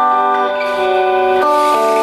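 Black HSS Stratocaster-style electric guitar played through an amp: a melodic line of sustained notes that change about every half second.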